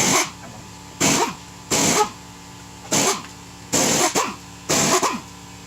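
Pneumatic impact wrench fired in short bursts on a truck's lug nuts, about one a second, each burst trailing off in a falling whine as the tool spins down.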